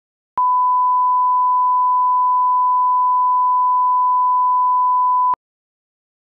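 Reference test tone that goes with SMPTE colour bars: a single pure, steady beep held at one pitch for about five seconds, starting and stopping abruptly.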